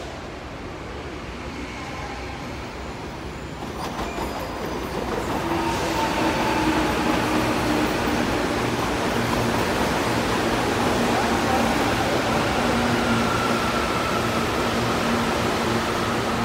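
CAF-built CPTM Série 8000 electric multiple unit entering a station and running past along the platform. Its rumble grows louder between about four and six seconds in and then stays loud, with steady whining tones over it.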